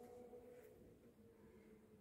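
Near silence: faint room tone with a low, steady hum.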